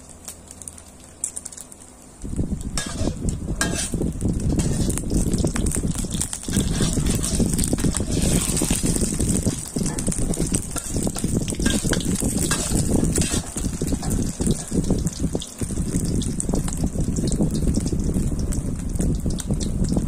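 Kai jeow omelet frying in plenty of hot oil in a wok, sizzling and crackling. A loud, low rushing noise starts about two seconds in and carries on throughout.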